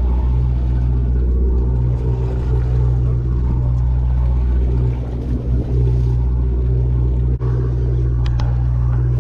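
Sportfishing boat's engine running with a steady, loud low drone.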